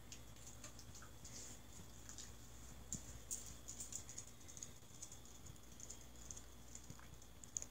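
Faint, irregular clicking of a dog's toenails on a hardwood floor as it walks, the ticks thickest about three to five seconds in.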